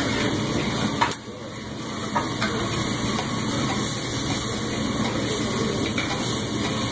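Steak and seafood sizzling steadily on a teppanyaki griddle, with the chef's metal spatula clacking on the hot plate: a sharp clack about a second in and another just after two seconds.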